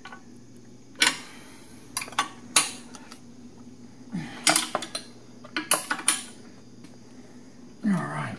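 Steel wrench clinking against the engine-guard bolt and crash-bar bracket while a bolt is tightened by hand: a run of irregular sharp metallic clinks, the loudest about a second in and again near two and a half seconds.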